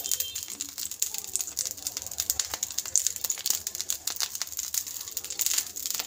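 Water droplets sizzling on a hot pan, a dense irregular run of sharp crackles and pops.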